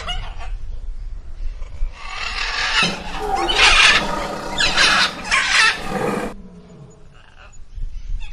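An animal calling: a loud, harsh, screeching call from about two seconds in until about six seconds in, with quieter calls before and after.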